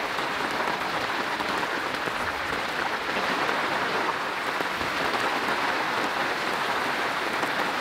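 Rain falling steadily onto the surface of a lake, an even, unbroken hiss of drops.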